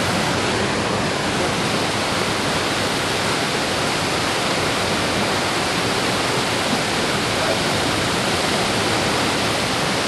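Steady, loud rushing of fast-flowing river water, an even hiss-like roar with no breaks.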